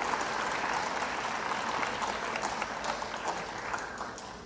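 Audience applauding after a band piece ends, the clapping slowly dying away near the end.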